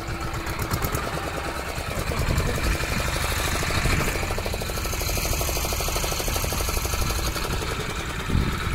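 Fishing boat's engine idling with a steady, rapid beat while the net is hauled.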